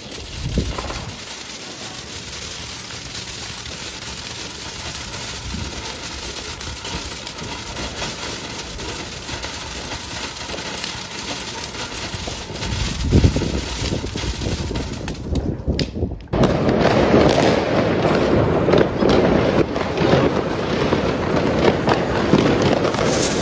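A string of a thousand small firecrackers (Funke '1000 Rubine') going off as one long, rapid, continuous crackle. About sixteen seconds in, it cuts abruptly to a louder, denser burst of firework bangs and crackling.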